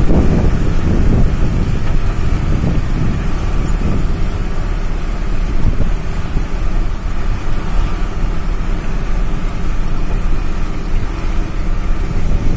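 Wind buffeting the microphone: a loud, uneven rumble with no clear tones.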